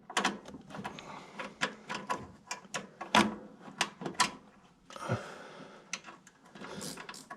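Irregular small clicks and light metallic knocks, a few each second, from tools and a screw being handled while trying to start the screw into a furnace part.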